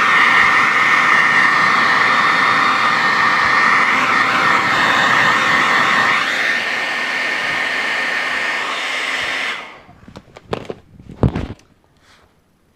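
Hair dryer blowing steadily with a thin high whine, switched off about three-quarters of the way through. A few sharp knocks and clicks of handling follow.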